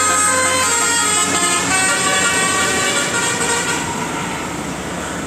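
Indonesian bus 'telolet' horn, a Basuri multi-tone horn, sounding a run of held notes that change pitch every second or so, then stopping about four seconds in, leaving an even background noise.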